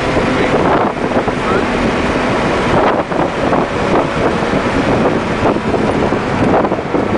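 BMW M3 at speed on a racetrack, heard from inside the cabin: the engine running hard under dense wind and tyre noise.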